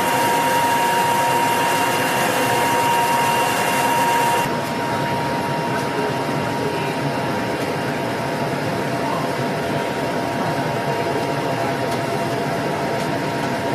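Steady hum of a submarine's onboard machinery and ventilation, with a high steady whine over it that stops abruptly about four and a half seconds in, leaving a duller, even hum.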